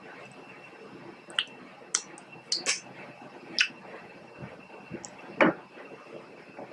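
Close-up mukbang eating sounds of king crab: a few sharp wet mouth clicks and smacks at irregular intervals, with one louder knock about five and a half seconds in.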